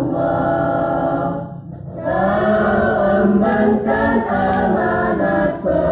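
Choir singing a song in Indonesian, holding long notes. There is a short break for breath about one and a half seconds in before the next phrase.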